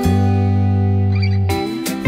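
Background music: a held chord that changes to a new one about one and a half seconds in.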